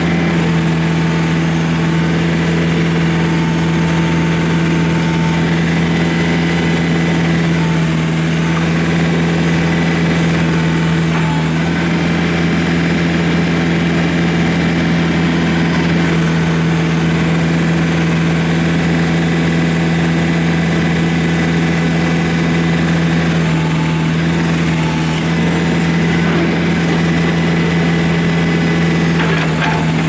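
John Deere 110 tractor loader backhoe's diesel engine running steadily at raised revs while it drives the hydraulics for the backhoe boom, which swings and lowers.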